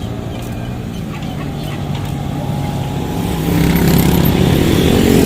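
A motor vehicle's engine running close by, getting louder from about three and a half seconds in as it comes nearer.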